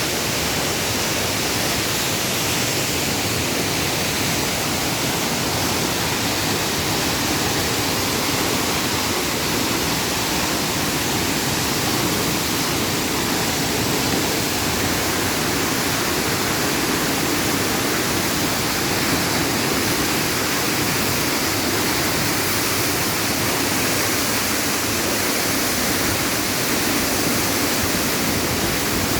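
Waterfall pouring down: a steady, unbroken rush of falling water.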